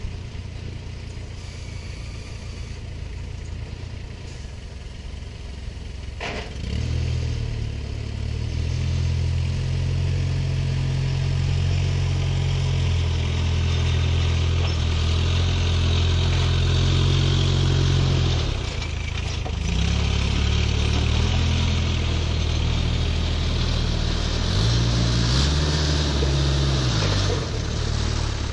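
A heavy diesel engine grows much louder about seven seconds in and holds a steady note. It drops off briefly around eighteen seconds, picks up again, and rises and falls in pitch near the end. A single sharp click comes just before the engine picks up.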